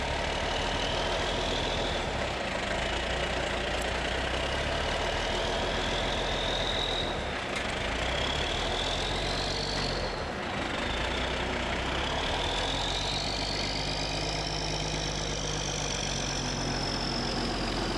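Heavy military truck's diesel engine running as it slowly pulls a lowboy trailer loaded with a steam locomotive tender, with a steady low hum and a high whine that rises and falls several times.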